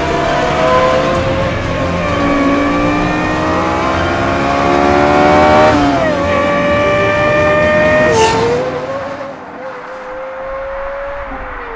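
Lexus LFA's V10 engine revving hard under acceleration: its pitch climbs through a gear, drops sharply at an upshift about six seconds in, climbs again, then falls away a little after eight seconds to a quieter, steadier drone.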